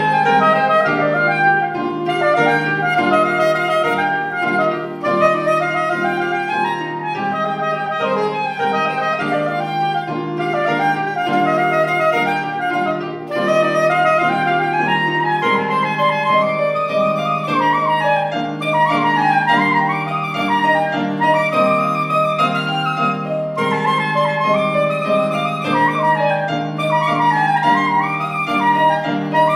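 Soprano saxophone playing a flowing melody over grand piano accompaniment, in a duet that continues without a break.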